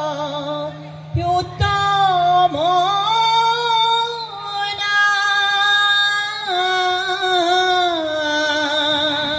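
Diha naam, Assamese devotional chant: a singing voice amplified through a microphone, drawing out long, wavering held notes. Two short knocks sound about a second in.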